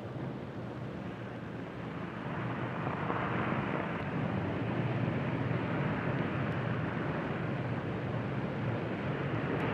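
Lockheed Super Constellation's four radial piston engines droning steadily in the cockpit on the landing approach, growing a little louder about two to three seconds in.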